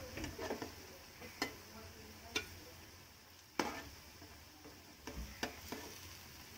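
Perforated steel skimmer clinking and scraping against an aluminium frying pan as breadcrumb-coated banana balls are scooped out of hot oil, with a faint sizzle of the oil underneath. The clinks come at irregular intervals, the loudest about three and a half seconds in.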